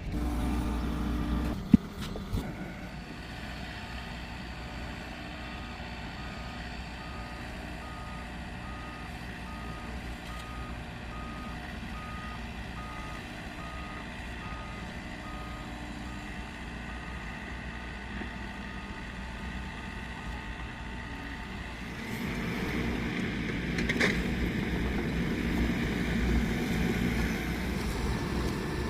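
Vehicle reversing alarm beeping about once a second over the low rumble of a running engine. A single sharp knock comes about two seconds in, and the machine noise grows louder about three quarters of the way through.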